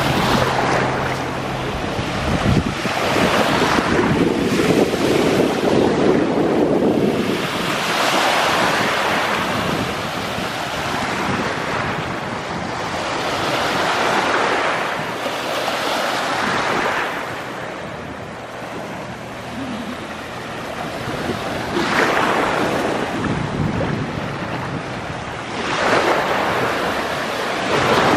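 Small waves breaking and washing up onto a sandy beach, the surf swelling and easing every few seconds, with wind buffeting the microphone.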